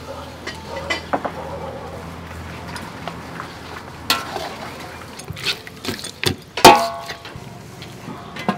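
A metal utensil stirring curry in a large metal cooking pot, scraping and knocking against its sides, with one loud ringing clang about two-thirds through. Near the end the pot's metal lid is set on with a knock.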